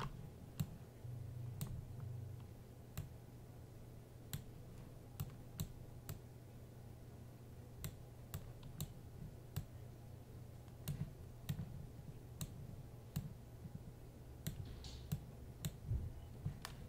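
Irregular, scattered clicks of a computer mouse and keyboard keys, over a faint steady low hum.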